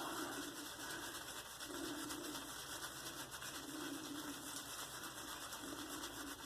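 Silvertip badger shaving brush being swirled on a puck of Mitchell's Wool Fat soap to load it: a soft brushing sound that swells and fades roughly every two seconds.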